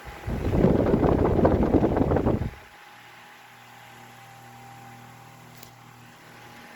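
Vintage Galaxy 9-inch table fan running on high: for about two seconds its air blast buffets the microphone with a loud rumble, then only the steady hum of its shaded-pole motor is left.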